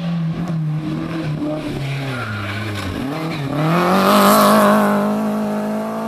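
Small hatchback rally car's engine on a hillclimb run. The revs fall as it slows into a bend, with a couple of small throttle blips. At about three and a half seconds in it accelerates hard out of the corner, loudest as it passes about four seconds in, and pulls away at high revs.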